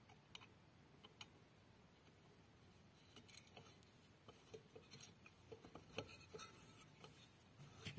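Near silence with faint, scattered small clicks from about three seconds in: an Allen key working the screw that holds the pulley on a washing machine's new wash motor.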